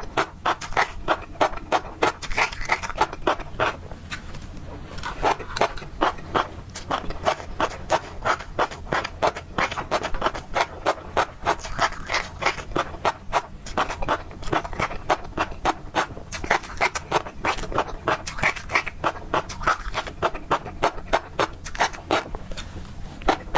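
Close-up chewing of tobiko (flying fish roe): crisp crunching and popping clicks as the roe bursts between the teeth, a few per second in runs with short pauses.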